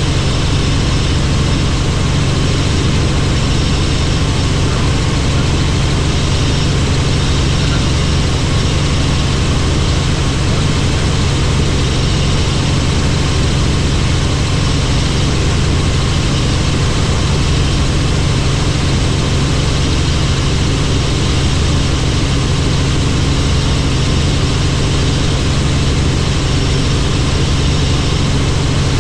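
Helicopter in flight: steady engine and rotor noise, a low drone with a hiss over it, unchanging throughout.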